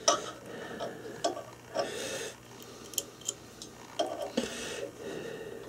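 Irregular small clicks and short scrapes of hands turning and adjusting a metal jaw chuck on a lathe, with a few of them a little louder about four seconds in.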